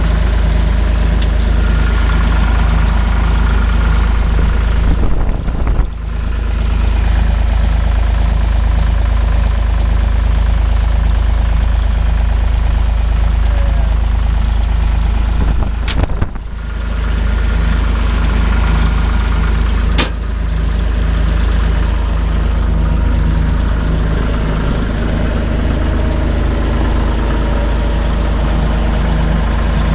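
John Deere 260 skid steer's diesel engine idling steadily while it warms up, still a little cold. A few brief knocks come through, the sharpest about twenty seconds in.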